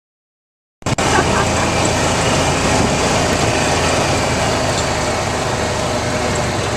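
Steady noise of a vehicle on the move, road and engine rumble with wind, starting abruptly about a second in.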